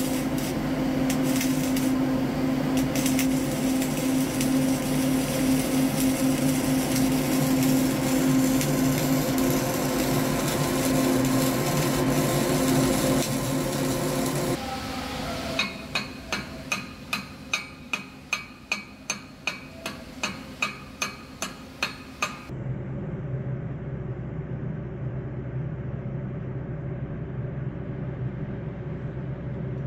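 Flux-cored arc welding: the arc crackles and sizzles steadily over the welding machine's hum for about the first half. The crackle stops, and a quick run of sharp metallic taps follows at about two a second. After that only a quieter steady hum remains.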